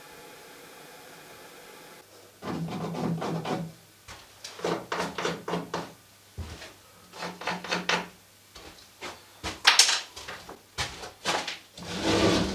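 Wood scraping and rubbing in five irregular bursts, each made of quick strokes, with one sharp knock near the end.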